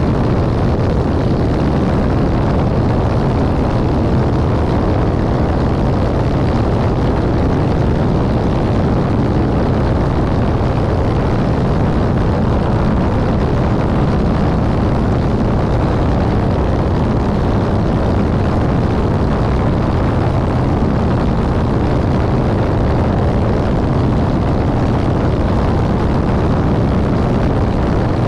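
Van's RV-7 light aircraft in flight: the steady drone of its piston engine and propeller, mixed with loud wind rush over a camera mounted outside under the wing.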